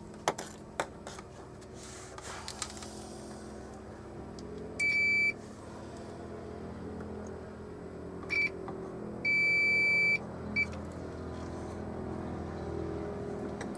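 Multimeter continuity beeper sounding as test probes touch points on a circuit board: a half-second beep, a short beep, a longer beep of about a second, and a brief blip. This is continuity testing to trace where an electrolytic capacitor's positive lead connects. A few light probe clicks come near the start.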